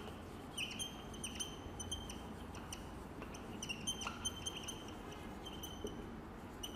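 Marker squeaking on a whiteboard as words are written: a string of short, high squeaks, a few each second, coming in clusters with brief pauses between words.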